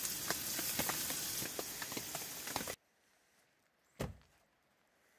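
Meat sizzling and crackling in a steel frying pan on a camp stove, cut off suddenly a little under three seconds in. About a second later comes a single low thud, an SUV door shutting.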